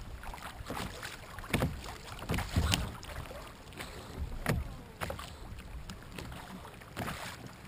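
Small waves lapping and slapping against a sit-on-top kayak hull, with wind rumbling on the microphone. Several sharp knocks come at irregular moments, the loudest about one and a half and two and a half seconds in.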